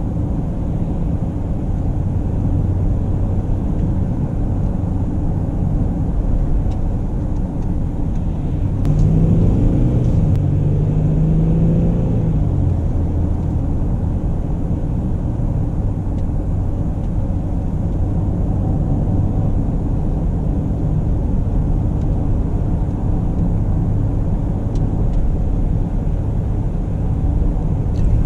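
2018 Mercedes-Benz GLE Coupe being driven, with a steady rumble of engine and road noise. About nine seconds in the engine note rises and changes pitch for a few seconds, then settles back.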